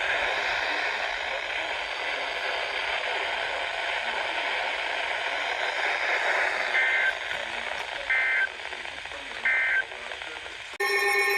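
Weather-radio static hiss, broken by three short two-tone data bursts about 1.3 s apart: the EAS SAME end-of-message code that closes the warning. Near the end a loud alert starts suddenly with several steady tones.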